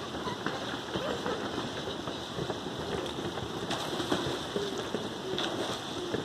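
Steady water splashing from a swimmer kicking through a swimming pool.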